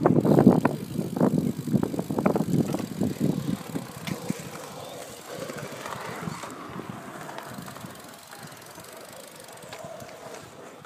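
Bicycles rolling along a paved path. A loud, irregular rumble over the first four seconds drops away to quieter, steadier rolling noise.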